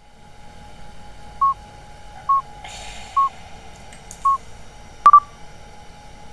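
Four short electronic beeps at one pitch about a second apart, then a louder beep with a sharp click about five seconds in, over a faint steady hum.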